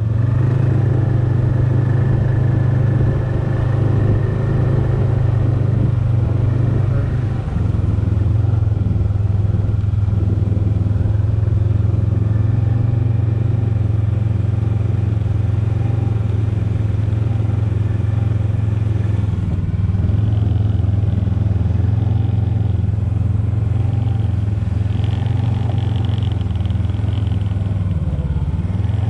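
Snowmobile engine running steadily under way, with a small shift in pitch about seven seconds in.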